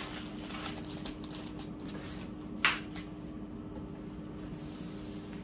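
Handling of a rolled diamond-painting canvas being smoothed flat on a table: a few soft strokes and one sharp snap a little past the middle, over a steady low hum.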